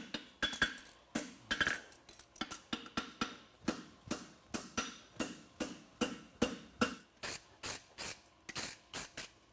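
Farrier's hand hammer striking a red-hot steel bar horseshoe on an anvil, a steady rhythm of about two to three blows a second, each with a short metallic ring. The blows are scarfing an end of the bar, thinning it for a forge weld.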